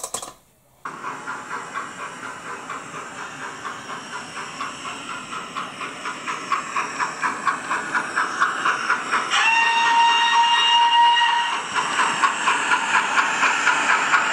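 Bachmann 9F model locomotive's Zimo sound decoder playing steam locomotive sound through an Ice Cube speaker: rhythmic exhaust chuffs, about three a second, growing louder. A steady whistle is blown for about two seconds a little past halfway.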